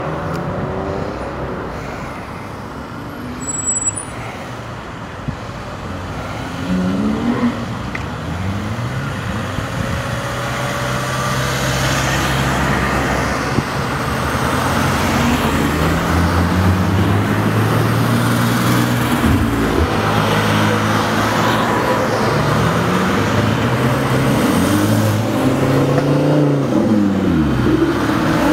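A line of sports cars, Porsche 911s among them, driving past one after another with their flat-six engines running, each engine's pitch rising and falling as it goes by. The engine sound grows louder and becomes continuous from about a third of the way in, as the cars come by close together.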